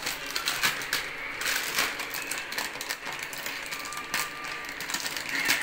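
Scissors snipping through a plastic instant-noodle packet and its small seasoning sachet, with the foil-plastic wrapper crinkling: a string of irregular sharp snips and rustles.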